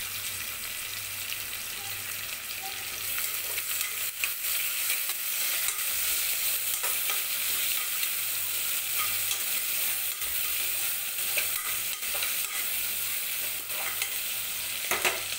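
Cut onions sizzling in hot oil in a pressure cooker while a spatula stirs them, scraping and clicking against the pot. The sizzle grows a little louder about three seconds in.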